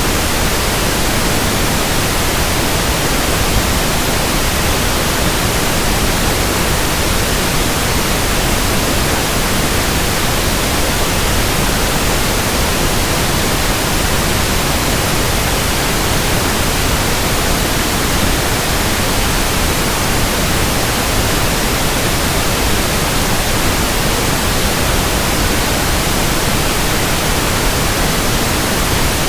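Steady pink noise test signal for measuring a sound system's frequency response: an even hiss across the whole range, with no change.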